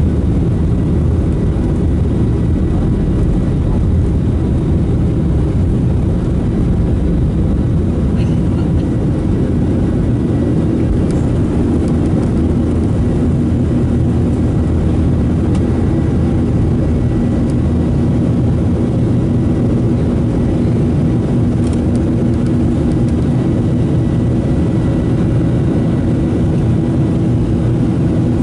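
Boeing 737-800 cabin during takeoff: the CFM56-7B engines at takeoff thrust make a loud, steady roar, mixed with runway rumble as the jet rolls and then lifts off into the climb. A steady engine hum comes through more clearly in the second half.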